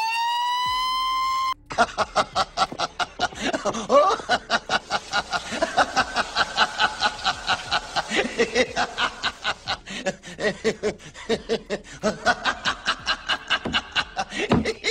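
A siren holds a steady high pitch and cuts off about a second and a half in. It is followed by a man laughing in a long, rapid string of 'ha's, about five a second.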